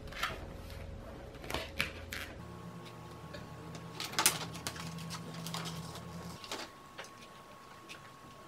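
Scattered light clicks and taps from a glue gun and from balloons and craft pieces being handled while gluing, over a low steady hum that stops about six seconds in.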